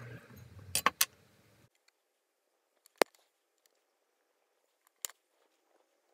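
Two single sharp metallic clicks about two seconds apart: a spring-loaded automatic centre punch snapping as it marks a sterling silver coin blank on a steel bench block. Near the start, a quick run of three lighter clicks from hand tools being handled.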